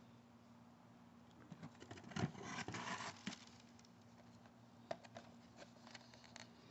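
Faint rustling and crinkling of plastic blister packaging and tissue paper as a boxed diecast car is pulled out of a cardboard box, loudest in a cluster about two seconds in, followed by a few light plastic clicks.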